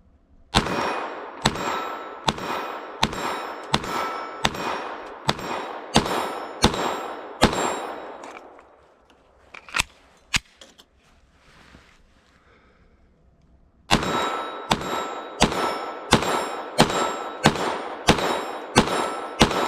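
Glock 44 .22 LR pistol fired in steady slow strings, about a shot every three-quarters of a second. About ten shots come first, then a pause with a few small clicks, then another string of about nine shots near the end.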